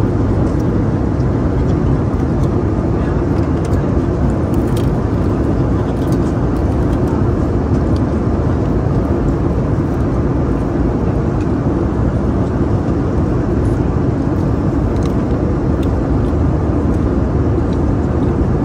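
Steady airliner cabin noise in flight: an even, low rush of engines and airflow, with a few faint light clicks.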